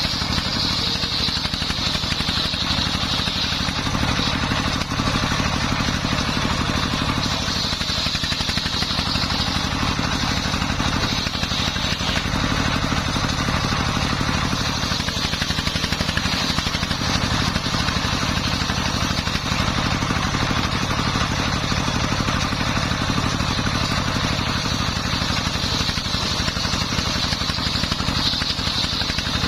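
Dongfeng 24 hp diesel engine running steadily, driving a homemade circular sawmill cutting timber; a high whine from the blade swells and fades.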